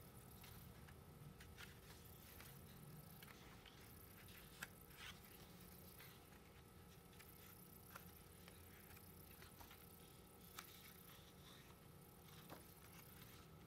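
Near silence: a low room hum with a few faint, sharp clicks and light rustles from handling photocards and album packaging.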